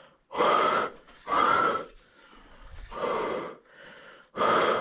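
A man blowing his breath hard into the open end of a rubber bicycle handlebar grip, four separate exhalations with the last near the end. This gets moisture inside the grip so it will slide onto the bar without grease.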